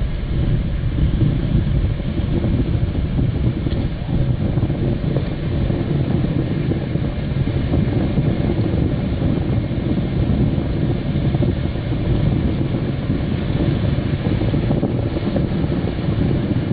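Strong wind buffeting the microphone as a steady low rumble, over the wash of breaking surf.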